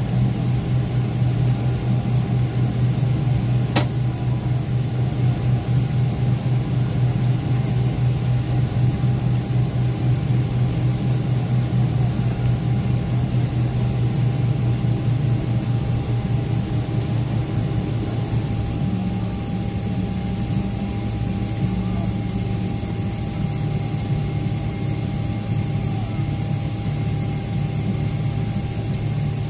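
Cabin noise inside a Boeing 767-400ER airliner taxiing: a steady low jet-engine hum with a thin steady whine above it. One brief click about four seconds in.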